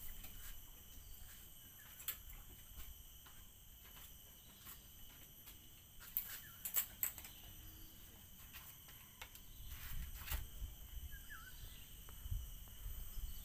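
Steady, high-pitched insect chorus holding several pitches at once, with scattered sharp clicks and taps, a small cluster about halfway through, and a single short chirp near the end.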